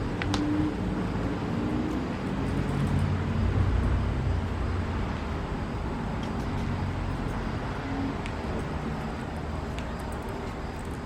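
Road traffic: a motor vehicle's low engine and tyre rumble that swells to its loudest about three to four seconds in and then slowly fades.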